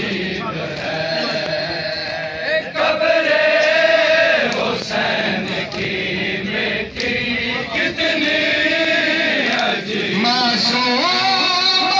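A Shia noha (Muharram lament) chanted by many voices, long held and bending notes carried on without a break. A few sharp slaps cut through, from mourners beating their chests (matam).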